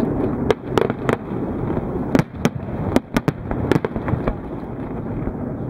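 Aerial fireworks shells bursting in quick succession: a run of sharp bangs and crackles over a continuous rumble, the bangs thinning out near the end.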